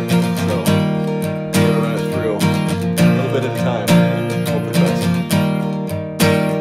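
Background music of a strummed acoustic guitar.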